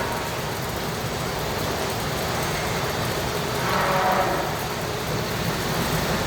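HOMAG Drilltec CNC processing centre running, a steady machine noise with a motor whine that swells for about a second around four seconds in.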